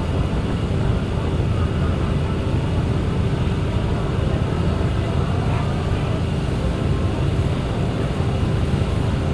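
Ferry boat under way, its engine running as a steady low drone with a constant hum through it, over a rushing noise from the boat's passage.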